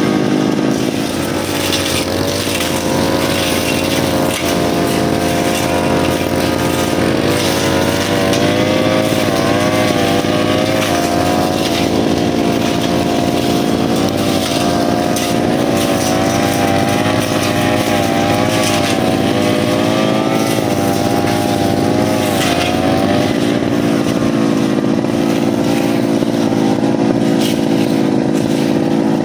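Small two-stroke brushcutter engine running steadily, its pitch wavering up and down a little.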